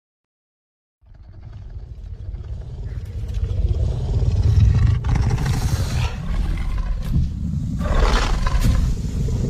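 Carnotaurus dinosaur roar sound effect: a deep, rumbling roar that starts about a second in and swells steadily louder, with two harsher, rasping surges in the second half.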